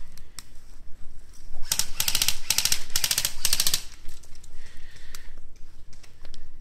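Airsoft gun firing several short full-auto bursts, a rapid even rattle of shots for about two seconds in the middle.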